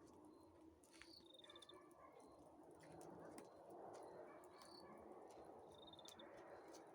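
Faint campfire crackling, with sharp pops scattered through it, and short high chirps now and then.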